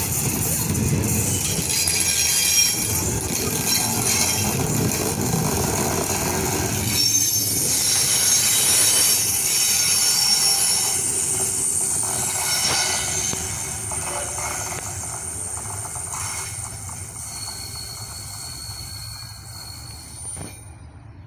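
Vintage railway passenger coaches rolling past on a curve, their wheels rumbling and squealing with high steady tones against the rails. The sound fades steadily over the second half as the train moves away.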